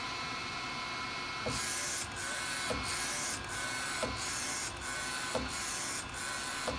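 Dreamjet UV flatbed inkjet printer printing: the print-head carriage with its UV curing lamp shuttles back and forth over the film. It makes a steady whirring hiss with a short break and a small knock about every two-thirds of a second.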